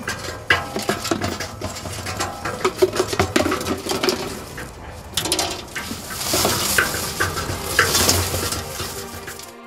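Cement mixer's metal drum turning, with its load of corn cobs and debris clattering and rattling inside in quick irregular knocks. A harsher scraping rush comes through in the second half, and the sound cuts off suddenly near the end.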